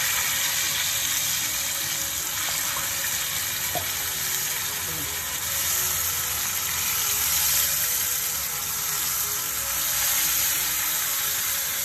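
Whole fish shallow-frying in hot oil in a flat iron pan: a steady sizzle of the oil as the fish are turned over with a spatula.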